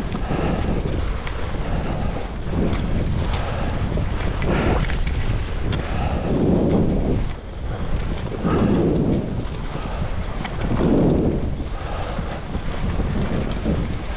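Wind rushing over the microphone at skiing speed, with skis carving through fresh snow on groomed corduroy in a swell about every two seconds.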